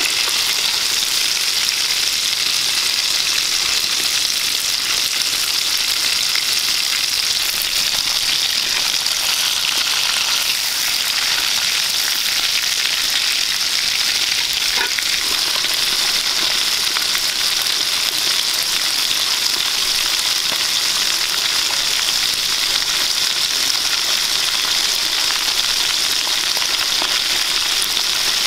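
Fish heads frying in hot oil in a wide metal wok: a steady, even sizzle.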